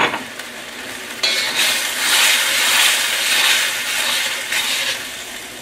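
Sweet-and-sour sauce with vegetables simmering in a wok, just thinned with water. From about a second in, a metal spoon stirs it around the wok in a steady, louder hiss that eases off near the end.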